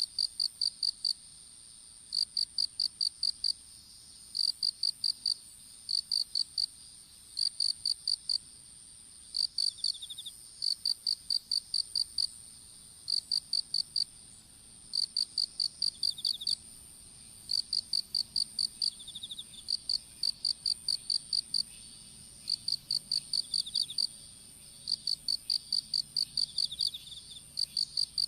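Crickets chirping in short pulsed bursts of several notes, about one burst a second, over a steady thin high-pitched insect trill that never stops.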